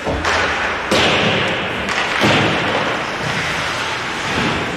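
Ice hockey play: sharp knocks of sticks and puck striking, about four in the first two and a half seconds, over a steady rush of background noise in the rink.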